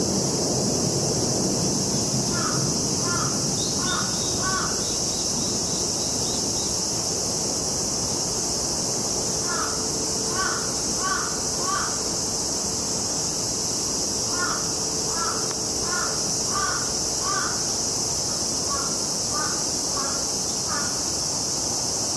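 A crow cawing in runs of four or five short caws, four runs in all, over a steady high drone of cicadas.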